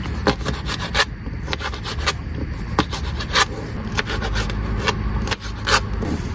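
Irregular clicks and knocks with scraping, like kitchen utensils and cookware being handled during cooking prep, over a steady low background noise.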